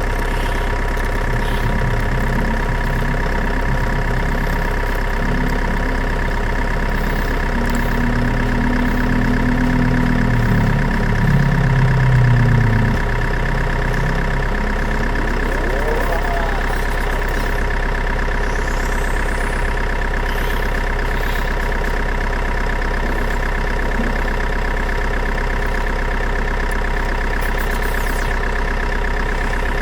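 Steady idling engine drone, with a deeper rumble added from about one to thirteen seconds in.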